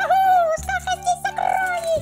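Background music: a gliding high melody over held bass notes.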